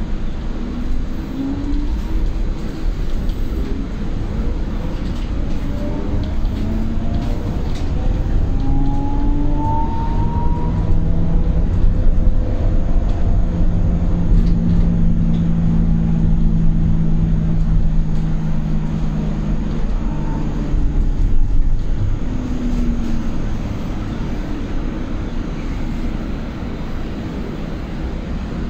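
Electric drive whine of a Solaris Urbino 9 LE electric battery bus, heard inside the cabin over road and tyre rumble. The whine rises in pitch for several seconds as the bus accelerates, holds steady while it cruises, and falls about two-thirds of the way through as it slows.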